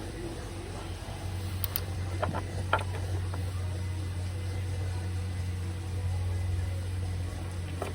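A few light clicks of handling as multimeter test leads are moved onto a fuel injector's terminals, over a steady low hum.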